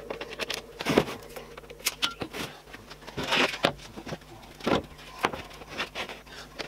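Plywood being handled on a table saw sled: irregular wooden knocks, clacks and short scrapes as the board is lifted, set down and slid against the fence, with a sharp knock about a second in.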